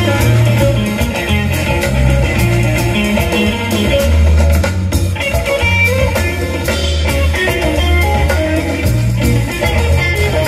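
Live band playing through a PA: an electric guitar plays lead lines over bass guitar and drums with a steady beat.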